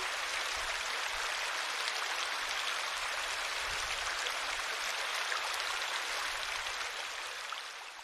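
Babbling brook: water running over rocks in a steady, even rush that fades out near the end.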